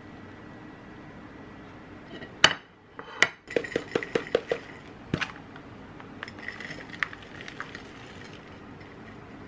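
Granola being shaken out of a plastic container onto a glass plate: a sharp click, then a quick run of about six knocks as the container is shaken, another click, and a light patter of clusters landing on the plate.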